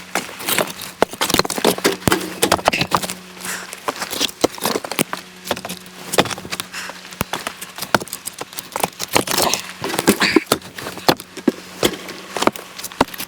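Split firewood being handled: pieces of wood knocking and clattering against each other in a quick, irregular run of sharp knocks.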